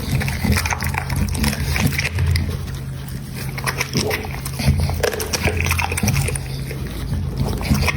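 American Pocket Bully dog eating noisily, with a quick run of wet smacking and crunching bites as it chews its food.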